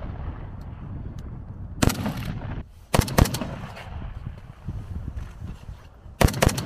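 Kalashnikov-pattern assault rifle fired in semi-automatic shots: a single shot about two seconds in, a quick pair about a second later, and another quick pair near the end, over a steady low rumble.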